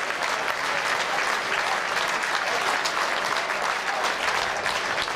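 Football crowd applauding, many hands clapping steadily.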